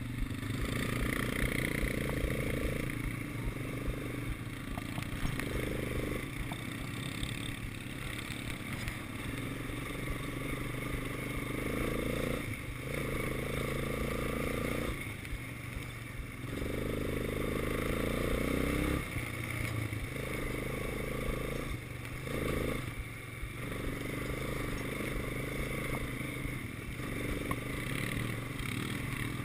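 Quad bike engine running while being ridden over a dirt track, the throttle repeatedly opened and eased off so that the engine note keeps rising and dropping back.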